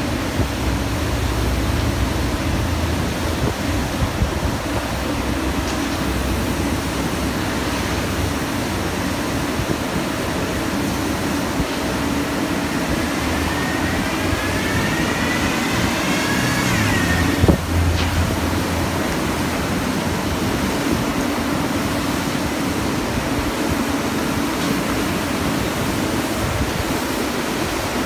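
Global M4 street sweeper running steadily as it sweeps the curb lane, a constant engine and broom noise. A little past the middle a high squeal glides upward for a few seconds and ends with a sharp knock.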